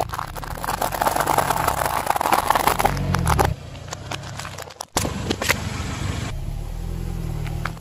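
Car tyre rolling over a pile of dry fusilli pasta: a dense run of crackling crunches over the low hum of the car's engine, stopping about three and a half seconds in. After that the engine runs steadily, with a sharp crack or two.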